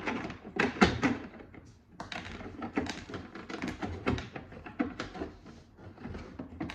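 Hard plastic toy playset pieces clicking and knocking together as they are handled and pushed into place: many short irregular clacks.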